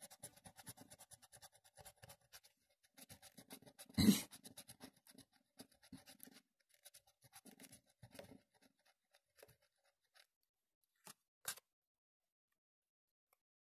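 The latex coating of a paper Numéro Fétiche scratch card being scratched off by hand: a quick run of short, faint rasping strokes that stops after about eight seconds. About four seconds in there is one louder knock, and near eleven seconds two short clicks.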